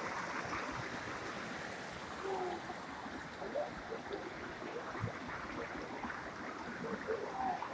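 Mountain river rushing and splashing over boulders, a small cascade pouring into a rock pool: a steady flowing-water sound.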